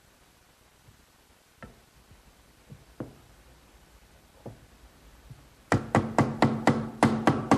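Hammer tapping a glued oak dovetail joint together, a quick run of about ten knocks, about four a second, starting after a few faint clicks, each knock ringing briefly.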